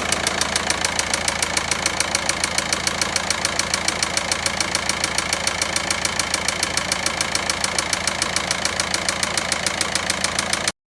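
VW Passat 1.9 diesel engine idling with a sharp, regular knock of about six a second: the abnormal engine noise being shown. It cuts off suddenly near the end.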